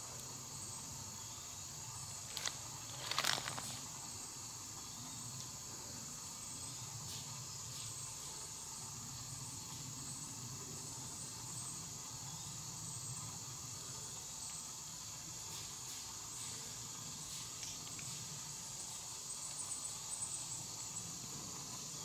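Steady chorus of insects such as crickets, with a short rustle about three seconds in and a few faint rustles near the end.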